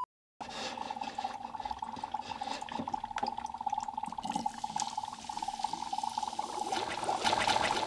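Red liquid solution poured from a plastic measuring cup into a toy volcano's crater, a steady splashing pour that starts about half a second in.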